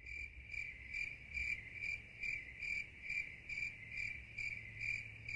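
Insect chirping, cricket-like: a steady high-pitched trill that swells in a regular pulse a little over twice a second.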